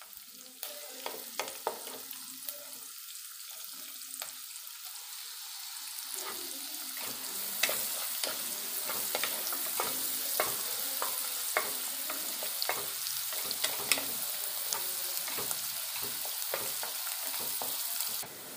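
Chopped ginger, garlic, onion and red chilli sizzling in hot oil in a wok, stirred with a wooden spatula that knocks and scrapes against the pan. The sizzle grows louder about halfway through and stops abruptly near the end.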